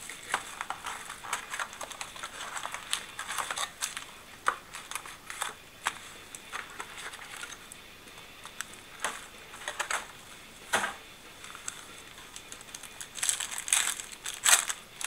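Clear plastic wrap of a trading card pack crinkling as it is pulled off, and a stack of baseball cards being flipped and slid through the hands: a run of small sharp clicks and rustles, busiest near the end.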